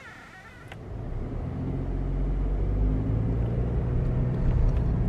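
Car driving, its steady low engine and road rumble building up about a second in and then holding.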